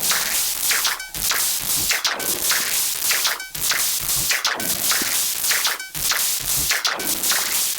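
Electronic drum loop from the Elastic Drums synth app: noisy, whip-like hissing hits that repeat about once a second, with brief gaps between them.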